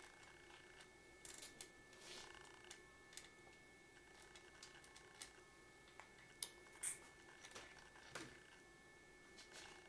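Faint, scattered clicks and light metallic taps of hand tools on engine parts, the two sharpest a little past the middle.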